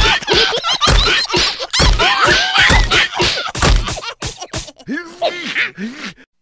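Cartoon scuffle: high squealing, chattering voices over a run of heavy thumps about once a second. After about four seconds it gives way to slower, lower groaning and mumbling.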